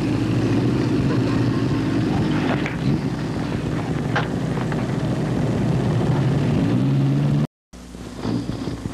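Honda motorcycle engine running steadily, its pitch rising briefly about seven seconds in, with a couple of sharp clicks along the way. The sound cuts out for a split second just after the rise.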